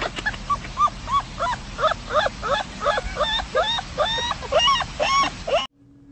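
A puppy yipping in a quick run of short, high squeaky calls, about three a second, each rising and falling in pitch. The calls stop abruptly near the end.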